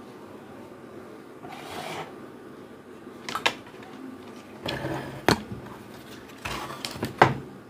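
Handling noise as a TV circuit board and its plastic chassis frame are lifted and turned over on a wooden bench: a few sharp knocks and clicks with short scrapes and rustles of the board and wires in between.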